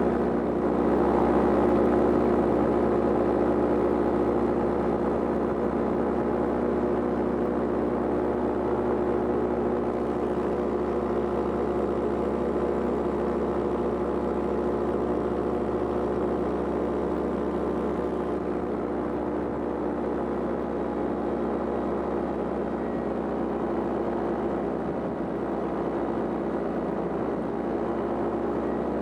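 Powered paraglider's engine and propeller running at a steady drone in flight.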